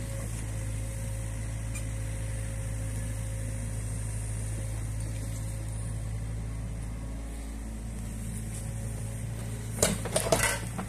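New Holland Kobelco E50.2 mini excavator's diesel engine running steadily while the boom and bucket work the ditch. Near the end a brief clatter of knocks and rustling rises above the engine.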